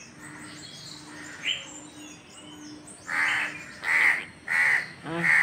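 A crow cawing four times in quick succession in the second half, harsh calls about half a second each. Faint high chirps of small birds come before.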